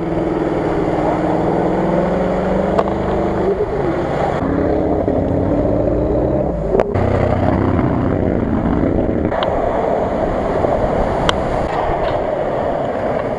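Off-road SUV engines running under load and changing pitch as the vehicles plough through muddy water, with a noisy wash of splashing. The sound changes abruptly several times, with a sharp click at some of the changes, as separate clips are spliced together.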